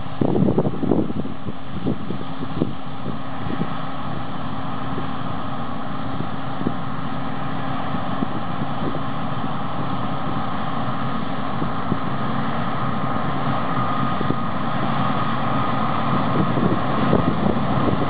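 Combine harvester running steadily while harvesting wheat: a constant engine and machinery drone with a steady whine, with wind buffeting the microphone.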